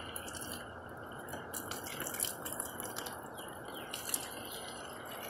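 Water from a garden hose running onto a plastic ride-on toy car: a steady hiss of the stream with scattered small splashes and drips.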